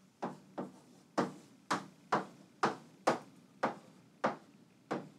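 Chalk striking and tapping on a chalkboard as figures are written, about ten sharp taps at roughly two a second.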